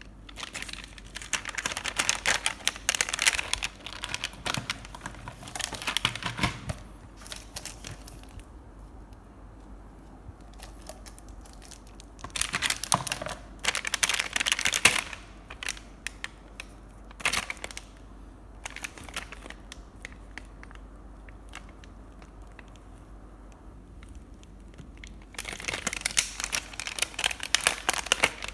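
Clear plastic packaging of a marker set crinkling and rustling as it is handled, in several bursts with quieter gaps between.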